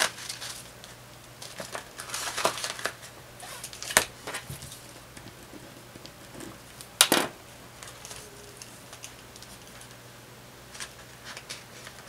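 Paper banknotes rustling and a clear plastic pouch in a cash binder crinkling as bills are handled and put away, with a few sharp clicks, the loudest about seven seconds in.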